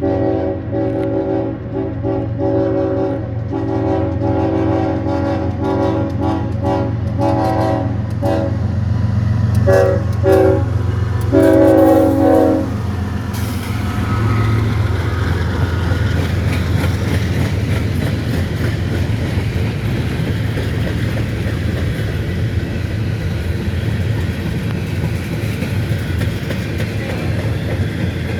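Diesel freight locomotive sounding its multi-note air horn in a series of blasts, long ones broken by short gaps, for about the first twelve seconds. After the horn stops, the train's engine rumble and the rolling clatter of the passing cars carry on.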